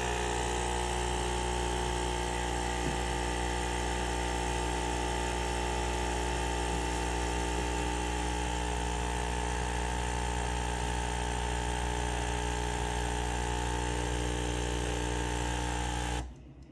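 Espresso machine pump buzzing steadily as it pushes cleaning-tablet solution through for a long shot during a cleaning cycle, then cutting off suddenly near the end.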